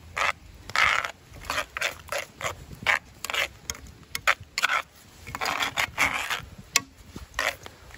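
Metal fork and spoon scraping and stirring through a runny egg mixture in a cast iron skillet: short rasping strokes against the pan, about two a second and uneven, with a longer run of scraping about five to six seconds in.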